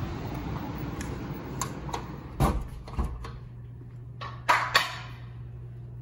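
Steady rushing outdoor noise broken by a few sharp knocks and clunks. About halfway through the rushing falls away and a steady low hum remains, and near the end comes a louder quick pair of knocks.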